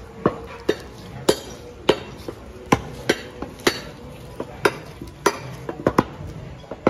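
Heavy butcher's knife chopping into a beef carcass: a quick, uneven run of sharp chops, two or three a second.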